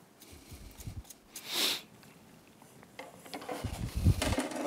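Soft clunks, knocks and scrapes of a Mercury 40 four-stroke outboard's lower unit being worked down and off the midsection, its driveshaft sliding out of the housing. A short breathy hiss comes about a second and a half in.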